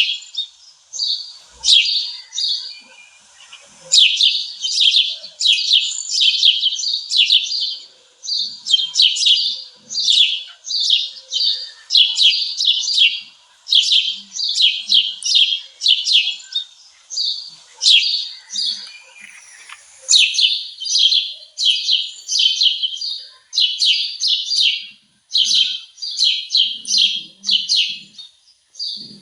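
Small birds chirping and twittering in high-pitched notes, in quick clusters of under a second that follow one another almost without pause.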